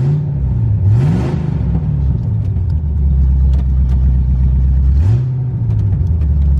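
1992 Camaro's engine revving up and dropping back to idle three times as it is given gas in drive, straining to get the car moving forward on a failing transmission.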